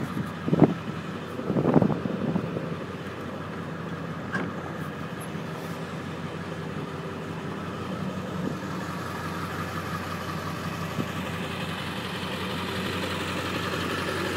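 Ford 7.3L Powerstroke V8 turbo diesel idling steadily. It grows a little louder near the end as the exhaust side is approached. A few loud knocks come in the first two seconds.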